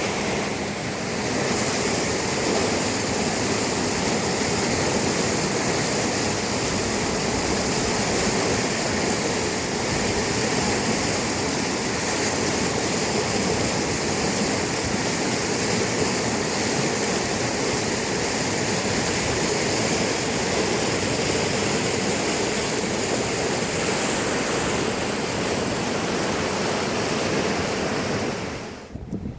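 Fast, turbulent mountain river rushing loudly and steadily, cutting off abruptly near the end.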